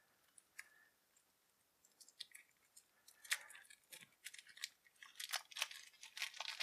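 Plastic shrink wrap being peeled off a small deck of cards: a few faint clicks, then quick crinkling crackles growing more frequent from about halfway in.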